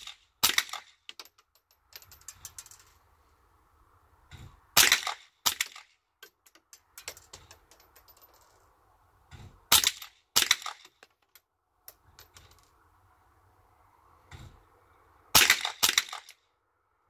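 Rifle shots fired in pairs, two shots during each three-second exposure of turning targets: one shot just after the start, then three pairs about five seconds apart, each pair's shots under a second apart. Lighter clicks come between the pairs.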